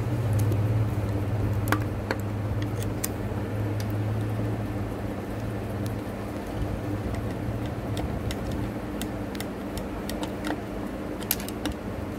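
Scattered light metallic clicks and taps from a screwdriver and small parts as the needle plate screws of a Juki sewing machine are tightened, a few single clicks early on and a quick cluster near the end, over a steady low hum.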